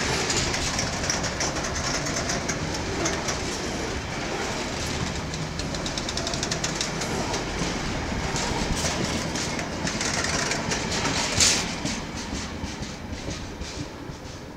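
Empty intermodal container flat wagons of a freight train running past, their wheels clicking in a quick clickety-clack over the rails. There is a sharp loud clank about eleven seconds in, then the sound fades as the last wagon goes by.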